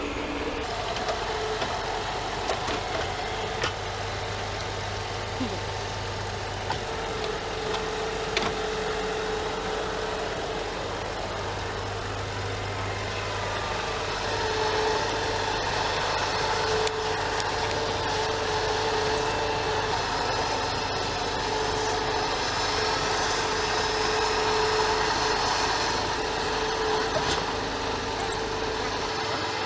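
Diesel engine of heavy machinery running steadily, with a held mid-pitched tone over a low hum and a few light knocks.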